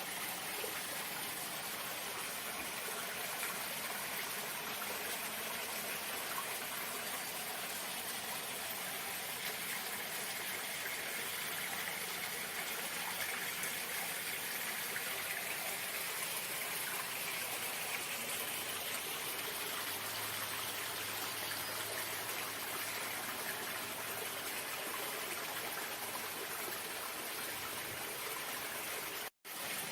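Running water flowing steadily with an even rushing sound; it cuts out for a split second near the end.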